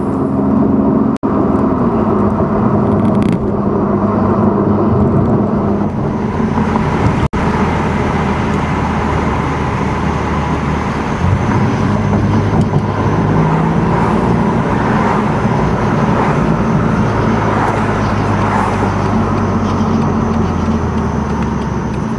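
BMW M2 Competition's twin-turbo straight-six cruising at low revs, heard inside the closed cabin over steady tyre and road noise. The engine note shifts in pitch a few times, and the sound drops out for an instant twice, about 1 s and 7 s in.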